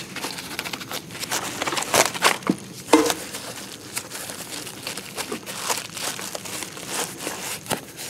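Plastic packing material, bubble wrap and a thin foam wrapping sheet, crinkling and rustling as it is handled and unwrapped from a small part. The rustle is irregular and crackly, with a few sharper clicks.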